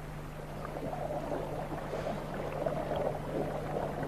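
Water bubbling and washing, a steady noise with small scattered pops.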